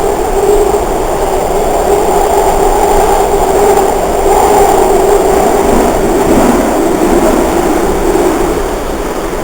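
Budd-built subway car running between stations, heard from inside the car: a loud, steady rumble of wheels on rail with a humming drive tone, the pitch briefly dipping around the middle and the level easing slightly near the end.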